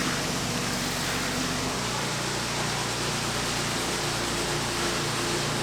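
Steady rushing noise with a low hum underneath that shifts to a different pitch about two seconds in, like machinery or an engine running.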